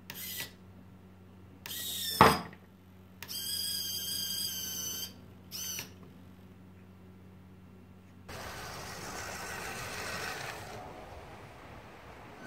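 Small electric winch motor on a WPL B1 6x6 RC tow truck whining in short bursts, the longest about two seconds, as it winches up the front of another model truck, with a sharp click about two seconds in. Near the end a steady rushing noise takes over.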